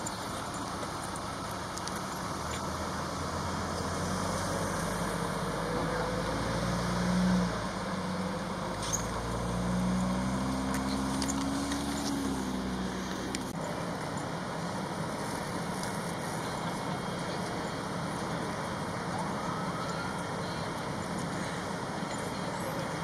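A motor vehicle's engine going by close at hand, its pitch climbing as it accelerates, dipping briefly about eight seconds in, then climbing again before it fades; loudest around seven seconds in. After that, a steady outdoor background noise.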